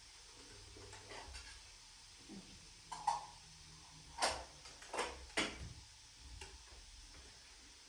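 Kitchenware being handled: a light clink about three seconds in, then three sharp knocks over the next two and a half seconds.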